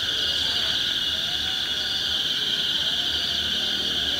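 Unbroken, high-pitched chorus of insects, a steady shrill sound that holds at the same level throughout.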